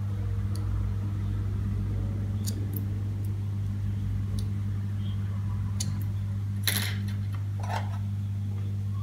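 Multimeter test probes and a small diode's wire leads clicking and tapping as they are handled and set down on a wooden table, with a few light clicks and one louder knock about two thirds of the way through. A steady low hum lies under it throughout.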